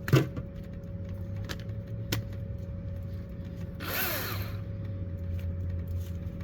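Battery-powered Ryobi 12-inch electric chainsaw on a nearly dead battery: a couple of sharp clicks, then a brief burst of the motor running about four seconds in, over a steady low hum.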